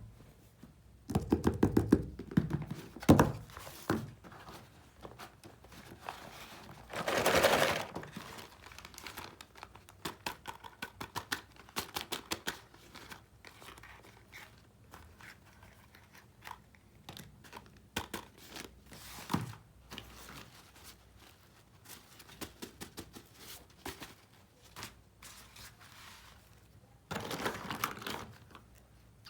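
Small plastic pieces of a miniature toy kitchen set being handled, clicking and knocking lightly, with two longer spells of packaging crinkling, about seven seconds in and near the end.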